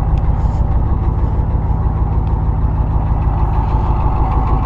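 Ford 6.9-litre IDI diesel V8 idling steadily.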